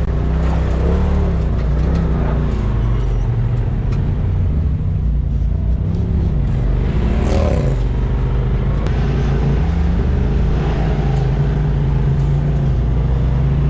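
Side-by-side UTV engine running steadily, with its pitch rising and falling about halfway through.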